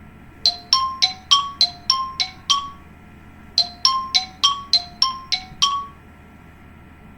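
An iPhone ringtone from iOS 1–6 playing: a phrase of eight quick bell-like chime notes, about three a second, played twice with a short pause between.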